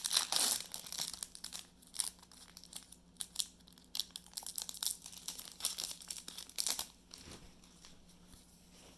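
Crinkling and rustling of Yu-Gi-Oh! card packaging and cards being handled close to the microphone, in quick irregular bursts that thin out toward the end.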